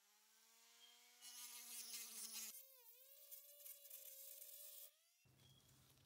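Small electric rotary tool whining at high speed as its bit grinds at a rivet in a rusty steel knife liner, the pitch wavering and shifting as it works. The whine stops about five seconds in.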